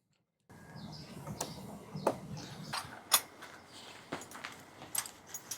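Metal clicks and clinks of a ratchet wrench and 8mm socket working the screws out of a car's plastic wheel-well fender cladding. The sound starts about half a second in, with about six irregular sharp clicks over a low rustle.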